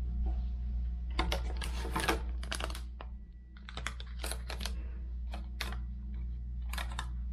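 Rapid clusters of light clicks and rattles over a steady low hum.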